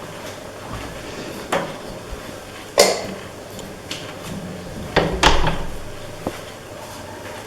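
Kitchen cupboard doors and drawers being opened and shut, giving a few sharp knocks and bumps. The loudest comes about three seconds in, with two close together about five seconds in.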